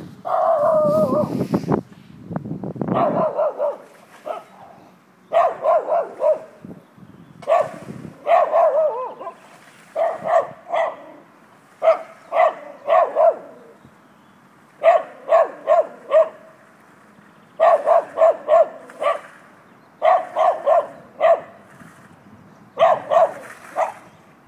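A dog barking in repeated volleys of three to five quick barks, a new volley every second or two. Loud rubbing and knocking on the microphone fill the first three seconds.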